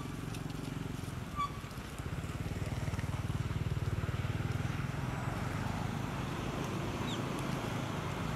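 A motor vehicle's engine running nearby, a steady low rumble that swells about two seconds in and eases off toward the end, with a few short high chirps over it.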